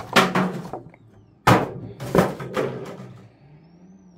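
Clear plastic blister packaging being handled and pushed aside: a few sharp plastic knocks and crackles in the first three seconds, the sharpest about a second and a half in, then quieter.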